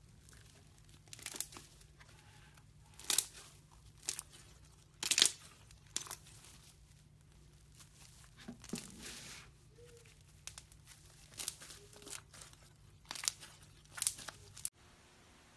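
Slime being pressed, poked and pulled with fingers in a plastic jar, giving about a dozen irregular sharp crackles and pops. The loudest comes about five seconds in, and the sound cuts off abruptly near the end.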